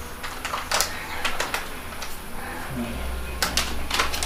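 Irregular sharp knocks and clicks, a few close together about a second in and another cluster near the end.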